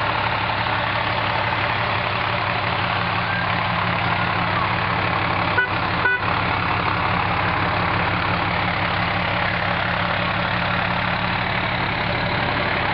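Heavy fire truck's diesel engine running steadily as it rolls slowly by at close range, a constant low drone with road noise, interrupted by two brief breaks about halfway through.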